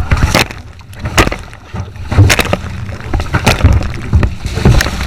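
Canoe paddles splashing water and knocking against the canoes in a splash fight, about half a dozen sharp splashes and knocks, with wind rumbling on the microphone.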